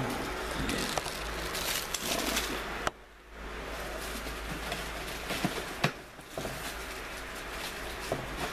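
Handling noise: rustling with scattered sharp clicks and knocks, with a brief dropout about three seconds in.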